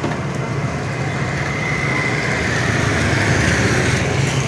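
Motorbike engine idling steadily on a rain-wet street, with the hiss of passing traffic, growing a little louder over the second half.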